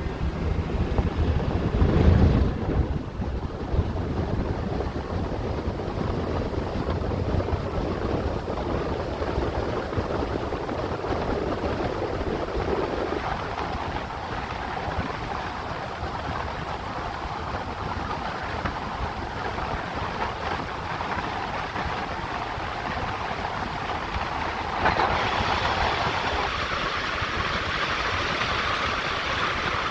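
Steady road and wind noise of a moving car, changing abruptly about halfway through and again near the end, when it turns hissier.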